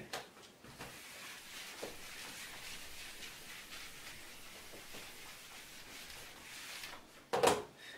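Felt whiteboard eraser wiping across a whiteboard, a steady soft swishing that stops about seven seconds in. A short, louder sound follows just before the end.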